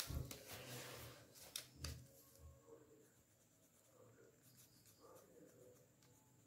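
Faint pencil scratching on paper as words are written. In the first couple of seconds there are a few soft knocks and rustling as the paper is handled.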